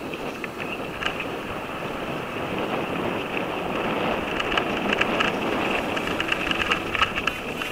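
Mountain bike ridden downhill on a dirt singletrack: steady wind rush on the camera microphone and tyre noise, with short clatters and rattles from the bike over trail bumps that come more often in the second half.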